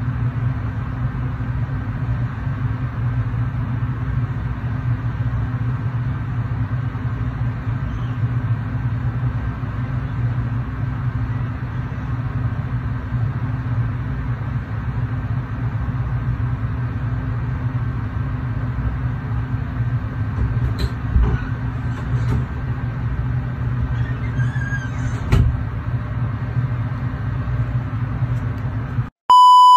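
A steady low machine hum with a faint high whine, with a few faint clicks about two-thirds of the way through. Near the end the hum cuts out and a short, loud electronic beep sounds.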